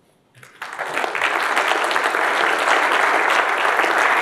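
Audience applauding: the clapping starts about half a second in, builds within a moment and carries on steadily.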